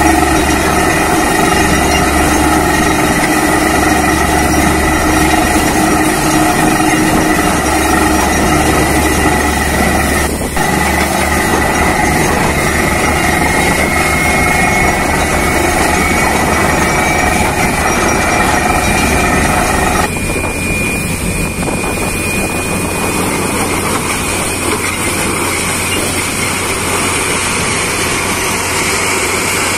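Truck-mounted borewell drilling rig running steadily with a loud engine hum while water is blown out of the bore and gushes from the casing. About 20 seconds in the steady tones drop away abruptly and a noisier rush takes over.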